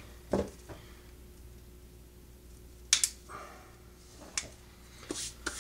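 A few short, sharp snips, including a quick double snap about three seconds in: hand clippers cutting the bindings off a broom's bristles.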